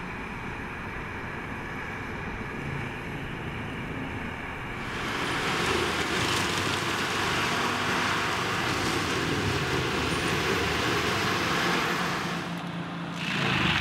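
Vermeer FT300 tracked forestry tractor running with its front mulching head, a steady diesel engine sound. It grows louder and more hissing about five seconds in and drops briefly near the end.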